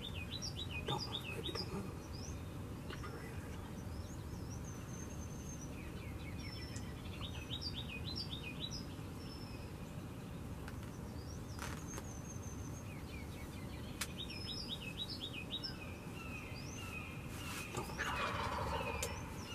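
A wild turkey gobbler gobbles once near the end. Songbirds repeat a short, high song phrase every several seconds.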